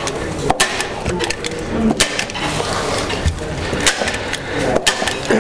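Stapler driving staples through a plastic membrane into a timber frame: a handful of sharp clicks at irregular intervals, with the membrane sheet rustling in between.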